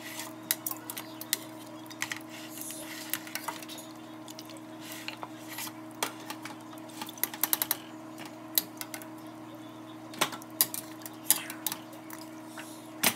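Metal tongs clinking and scraping against the inside of a stainless steel stockpot as boiled ribs are lifted out of the broth, with irregular sharp clinks. A steady low hum runs underneath.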